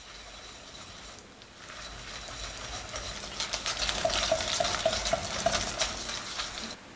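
Wire balloon whisk beating powdered sugar into a soft creamy mixture in a glass bowl, the wires scraping and clicking against the glass in quick strokes. It starts soft, speeds up and gets louder from about two seconds in, and stops just before the end.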